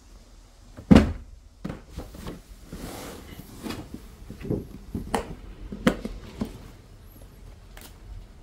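Packaging being handled: a loud thump about a second in, then a series of lighter knocks and clicks from a foam storage case as its latches are undone and the lid opened.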